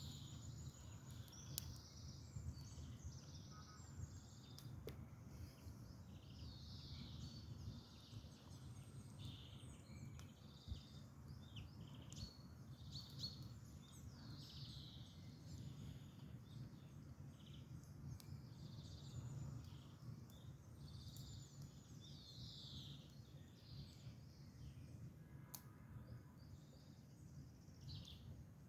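Several songbirds singing, with many short chirps and falling whistled notes, over a steady low rumble. A few sharp pops of a wood fire crackling stand out here and there.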